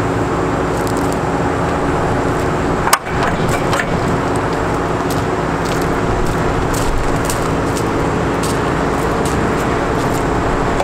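Caterpillar C7 diesel engine of a truck running steadily, a constant hum with several low tones. A single sharp clunk sounds about three seconds in, with light crunching footsteps on gravel here and there.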